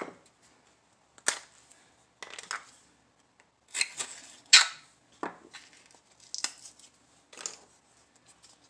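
A plastic spice jar of garlic powder being handled, shaken and opened over a glass bowl: about ten short rattling clicks and scrapes at uneven intervals, the loudest about halfway through.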